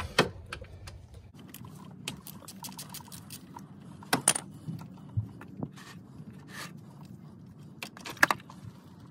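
Scattered metallic clicks and clinks of a 6 mm hex-bit socket and hand tools working an ATV's oil drain plug loose, a few separate taps over a faint steady background.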